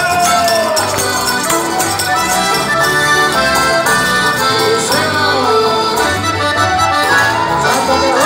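Live chamamé band playing, with accordions leading over guitar and electric bass.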